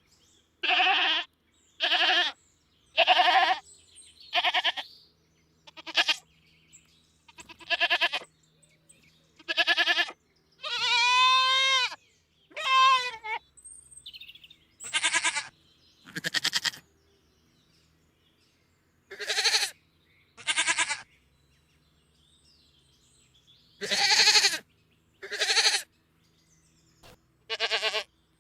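Goat bleating again and again: short bleats a second or two apart, with one longer, wavering bleat partway through and a couple of brief pauses.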